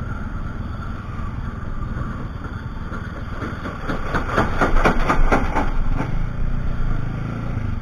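Motorcycle engine running at low speed under wind rumble on the rider's mic. About four seconds in, the tyres drum over a series of raised road strips at a crossing, a quick run of about four to five bumps a second lasting around two seconds.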